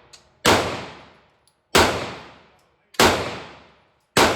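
Glock pistol fired four times at a steady pace, about one shot every second and a quarter, each shot sharp with a long echo trailing away.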